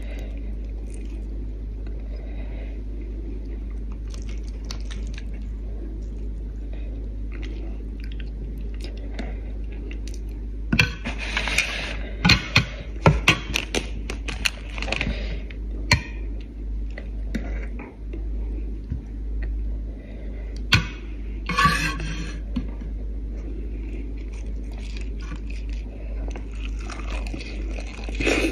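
Eating and food-handling sounds over a steady low hum: quiet for about ten seconds, then rustling and crinkling of lettuce leaves and sharp clicks and scrapes on the plate as a lettuce wrap of fish and rice noodles is put together, and chewing near the end.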